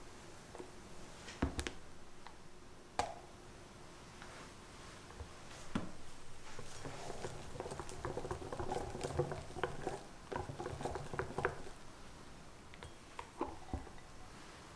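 A silicone spatula knocks against a glass bowl a few times. Then a silicone-wire whisk stirs meringue into beaten egg yolk in a glass bowl, making a soft, wet, crackly patter for about five seconds before a few light taps.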